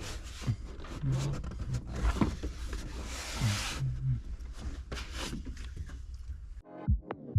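Irregular clicks, knocks and a brief rustle of car interior parts being handled and fitted, over a low hum. Near the end this gives way to electronic music with a steady kick drum.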